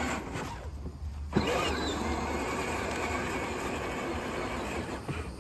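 Electric motors and gearboxes of a battery-powered ride-on toy Jeep running as it drives over grass. It cuts out about half a second in, starts again with a click and a rising whine about a second and a half in, then runs steadily until it stops near the end.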